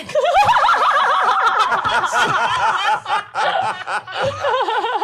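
A group of several people bursting into laughter together, many voices at once. It starts suddenly and carries on, ebbing briefly about three seconds in.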